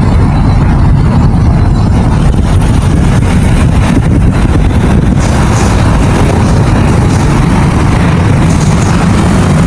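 Vehicle on the move: a loud, steady, low rumble of road and wind noise.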